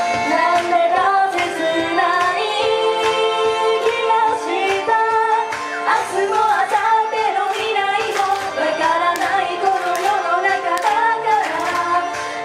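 A girl singing a J-pop idol song into a handheld microphone over a loud pop backing track with a steady beat, played through a PA.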